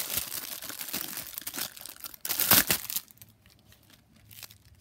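Toy packaging being opened by hand: dense plastic crinkling and tearing, loudest about two and a half seconds in, then much quieter after about three seconds with only a few faint rustles.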